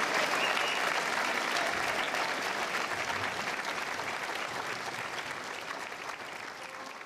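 Audience applauding, the clapping slowly fading away toward the end.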